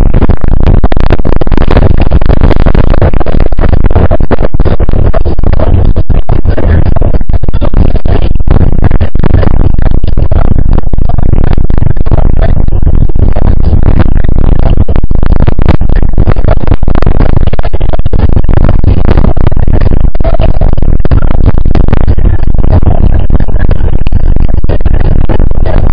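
Wind buffeting the microphone of a camera carried on a moving bicycle: a constant, very loud, distorted rumble and rush with rapid flutter.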